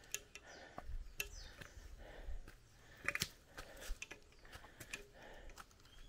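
Jungle soundscape: scattered sharp clicks and crackles, several a second, with a few faint high chirps falling in pitch.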